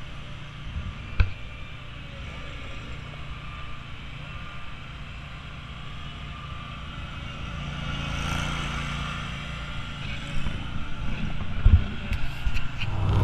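Zero-turn riding mower's engine running at a distance as it drives around, growing louder in the second half. A single sharp click sounds about a second in.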